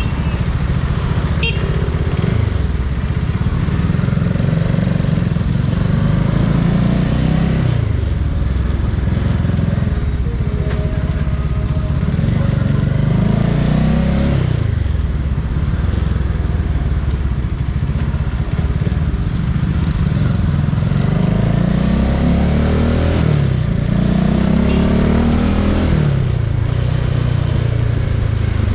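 Bajaj Dominar 400 single-cylinder motorcycle engine under way, its pitch climbing as it accelerates and then dropping back, three times over.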